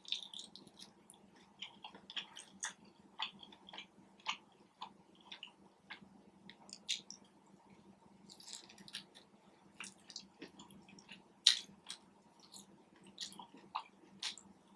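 Close-miked chewing and wet mouth sounds of someone eating lobster tail and lamb chops, with irregular smacks and small crunches, one louder click about eleven and a half seconds in. A faint steady hum runs underneath.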